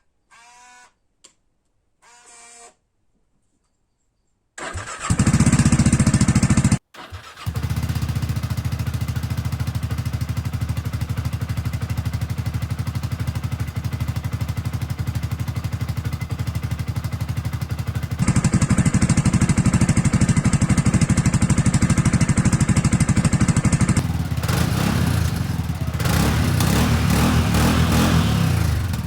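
A few short pitched beeps, then the Segway Snarler 600 ATV's engine starts about four and a half seconds in. It cuts out briefly, picks up again and runs steadily, getting louder about two-thirds of the way through and changing again near the end.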